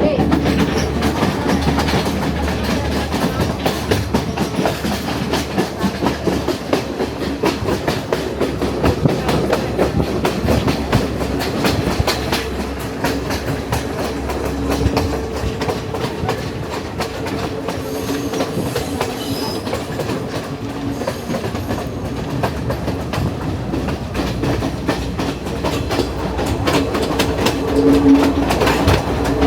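Ella Odyssey passenger train running along the track, wheels clacking over the rails with a steady rumble and a low hum that comes and goes.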